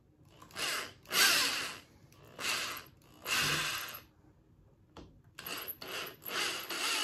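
Corded electric drill run in repeated short bursts, its 5/32-inch bit widening screw holes through an aluminium ion-arm end cap. There are about four bursts, a pause of roughly a second around the middle, then more bursts that run longer near the end.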